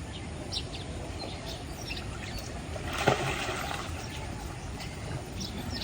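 Steady rush of a mountain river, with short faint bird chirps scattered through and a brief louder splashing burst about three seconds in.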